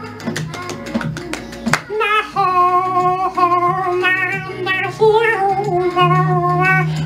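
Flamenco-style music: quick plucked, guitar-like strums, then a wavering sung melody from about two seconds in.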